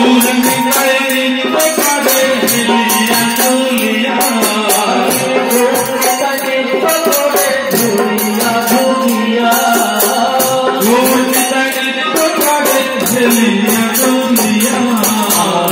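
Bengali devotional kirtan: a chant sung over electronic keyboard and a laced hand drum, with metal jingles or small cymbals keeping a fast, steady beat and the crowd clapping along.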